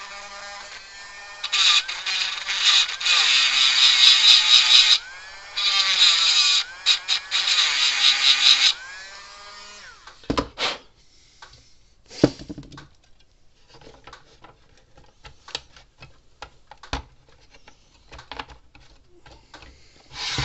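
A small handheld rotary power tool runs in two spells of about three seconds each, cleaning a corroded spade-connector sleeve, its whine falling in pitch as it spins down after each spell. After that come scattered clicks and knocks of parts being handled.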